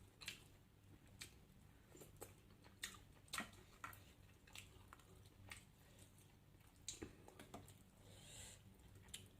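Faint eating sounds: a person chewing, with scattered short, sharp clicks and crunches at irregular intervals.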